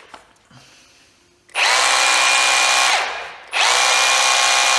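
Repaired Milwaukee cordless brushless SDS drill run twice with short trigger pulls: each time the motor whines up to speed, holds a steady pitch for about a second and a half, then winds down. The drill now runs, which shows the repair worked.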